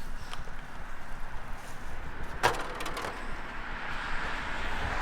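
Outdoor background rumble with a single sharp knock about two and a half seconds in, and a rising hiss near the end.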